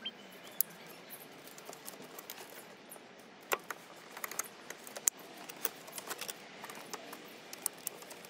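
Scattered light clicks and rattles of plastic wiring-harness connectors and wires being handled, with a few sharper clicks, the loudest about five seconds in.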